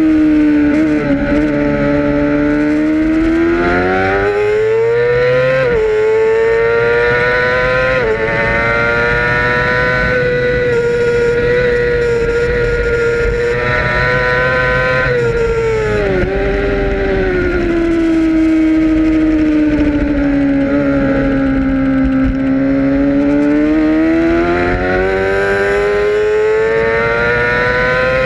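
Middleweight racing motorcycle engine at high revs, heard onboard over a steady rush of noise. The engine pitch climbs under acceleration and drops sharply twice, about 6 and 8 seconds in, as the bike shifts up; it holds steady, dips about 16 seconds in, sags slowly through a long corner and climbs again near the end.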